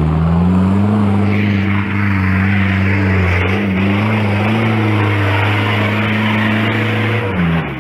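Off-road vehicle engine running hard at high revs, its pitch rising a little in the first second and then holding steady, loud; it cuts off abruptly just before the end.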